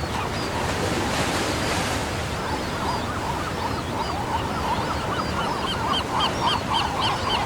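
Pelican chicks calling: many short, repeated squawks from several birds overlapping, several a second and growing busier near the end, over a steady rushing noise that swells about a second in.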